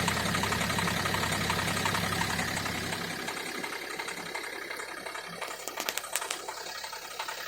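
Renault Scenic II's 1.5 dCi four-cylinder diesel idling with a regular knock in its running, then stopping about three seconds in. A few sharp clicks follow near the end.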